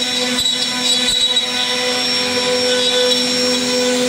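CNC router spindle running with a steady whine as its bit carves a relief scroll pattern into a wooden board.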